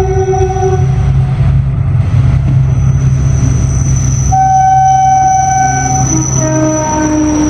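ZDM4A narrow-gauge diesel locomotive passing close, its engine running with a steady low rumble. Several squealing tones come and go over it, the loudest from about four to six seconds in, with a thin high whine throughout.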